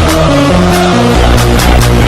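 Electronic dance music with a steady beat and heavy stepping bass: the team's goal song that plays after the goal horn.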